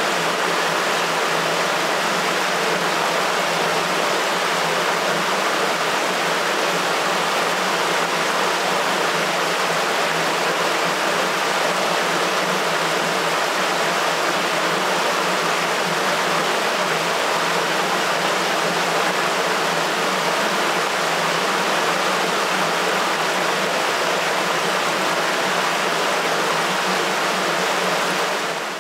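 Water rushing steadily through a sewer. The even rushing fades out at the very end.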